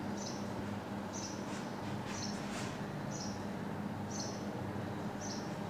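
Marker writing on a whiteboard, with a short high chirp repeating about once a second over a steady low hum.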